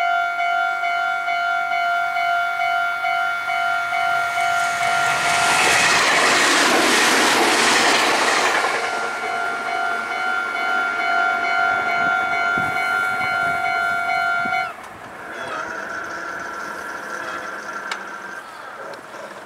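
Railway level-crossing warning bell ringing in a steady repeating pattern. A Meitetsu electric train rushes past from about five to nine seconds in, with wheel and rail noise. The bell cuts off suddenly about fifteen seconds in, and a fainter ringing tone carries on and fades away.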